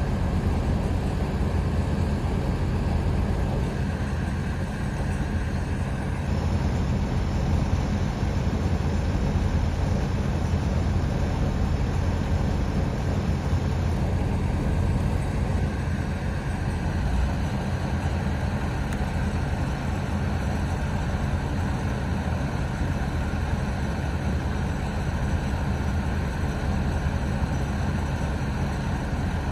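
Heavy equipment diesel engine running steadily: a low, even drone that hardly changes.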